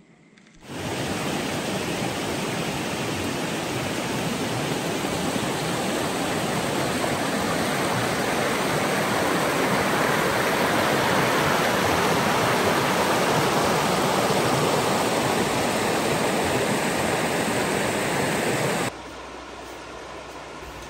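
Shallow river water rushing over stones in a riffle: a steady, even rush that starts about a second in and falls sharply to a much quieter level near the end.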